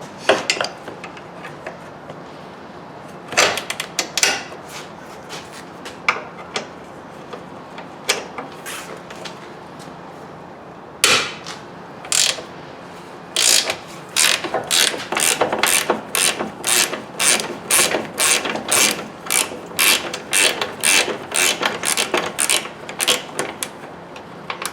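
Hand ratchet wrench being worked on a nut or bolt. Its pawl clicks in short strokes, scattered at first, then a steady run of about two strokes a second through the second half.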